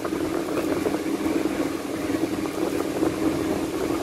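Steady mechanical hum with an even rushing noise.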